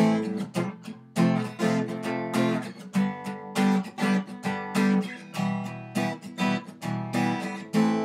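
Acoustic guitar strummed in a percussive, stop-start rhythm: sharp strokes about two or three a second, each chord cut short rather than left to ring. A last chord is struck near the end and left ringing.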